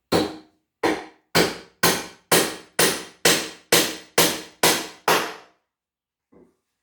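Claw hammer driving a nail into wooden framing boards: about eleven strikes at roughly two a second, each ringing briefly, stopping about five seconds in.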